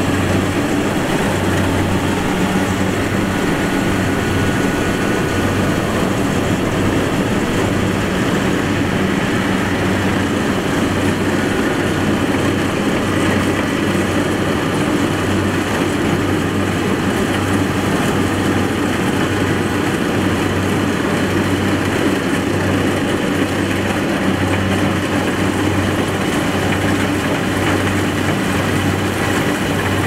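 Kubota combine harvester running steadily, its diesel engine droning with a low, regular pulsing under a wide mechanical noise.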